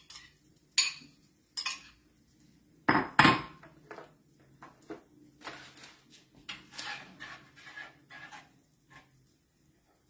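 Kitchen utensils clinking against a bowl and a skillet while scrambling eggs: a few light taps, two loud clanks about three seconds in, then lighter scraping and clinking as the eggs are stirred in the pan.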